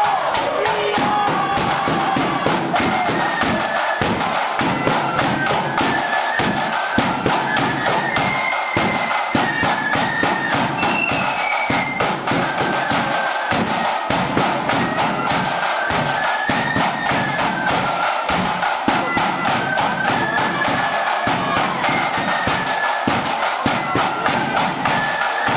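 Ulster marching flute band playing a tune: several flutes carrying the melody together over a steady bass drum and rattling side drums.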